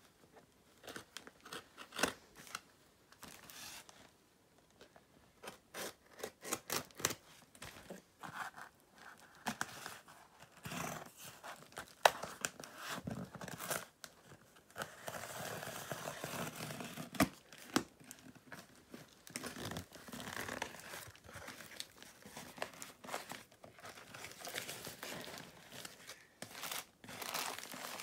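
Packing tape on a cardboard box being slit with a pointed metal tool and torn away: irregular scrapes, clicks and tearing on the cardboard, with the box flaps and plastic wrapping crinkling near the end.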